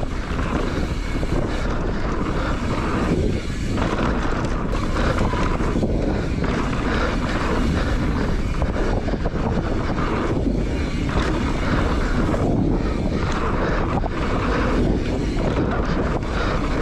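Wind rushing over an action camera's microphone as a mountain bike descends a dirt trail, with its tyres rolling over the dirt and the bike rattling over bumps as scattered knocks.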